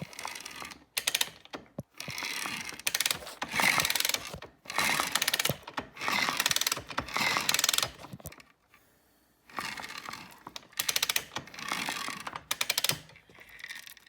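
A ratchet wrench being worked in repeated strokes, each stroke a quick run of fine clicks, about nine strokes with a short pause about two-thirds of the way through.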